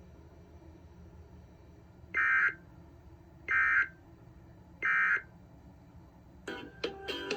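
Emergency Alert System end-of-message data tones: three short, buzzy digital bursts about a second and a half apart, marking the end of the tornado warning. Other broadcast audio comes back in near the end.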